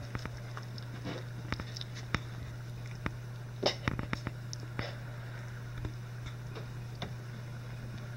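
Litter of three-week-old Icelandic Sheepdog puppies squirming and mouthing one another on a blanket: scattered small clicks, taps and smacking sounds, with a cluster of louder ones about three and a half seconds in. A steady low hum runs underneath.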